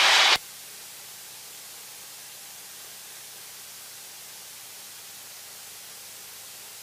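Loud rushing noise through an aircraft headset intercom that cuts off suddenly under half a second in, as the voice-activated mic closes; then a steady faint hiss of the intercom line with a faint low hum.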